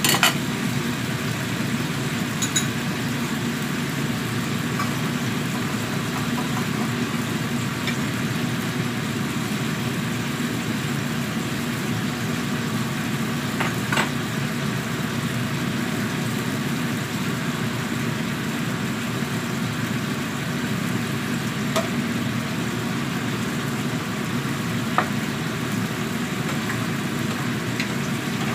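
Steady kitchen hum and rush of a range hood fan and a gas burner under a wok of bottle gourd simmering in water, with a few light clicks of utensils on the counter.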